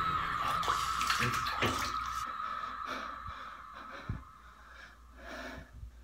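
A man's heavy, strained breathing and gasps in a bathtub, with a little water sloshing. A held high tone dies away over the first two seconds, and there is one soft thump about four seconds in.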